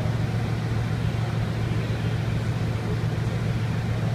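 Bugatti Veyron Grand Sport Vitesse's quad-turbocharged W16 engine idling steadily with a deep, even hum.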